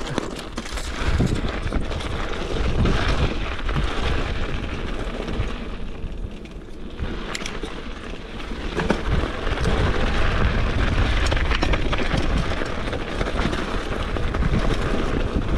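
Wind buffeting the action-camera microphone: a heavy, gusting low rumble that swells and eases.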